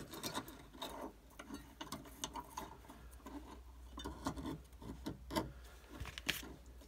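Jeweller's saw blade and a small sheet of metal making faint, irregular clicks and taps against the wooden bench pin as the piece is turned and repositioned on the blade, with a sharper tap near the end.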